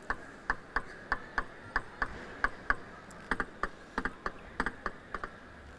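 Table tennis ball clicking off the rackets and table in a fast rally, about three to four hits a second with some hits in quick pairs, the rally ending a little after five seconds in.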